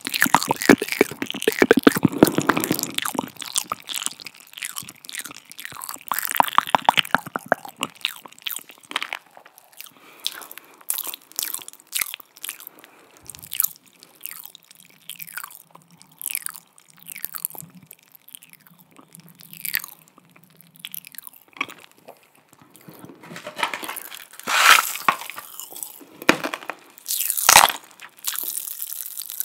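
Close-miked ASMR mouth sounds: wet tongue and lip clicks in irregular runs. There is rapid dense clicking in the first few seconds, a quieter stretch in the middle, and the loudest clicks near the end.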